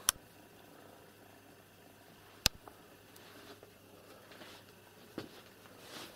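Cat purring quietly and steadily while a kitten suckles. Two sharp clicks stand out, one right at the start and one about two and a half seconds in, with a softer one near five seconds.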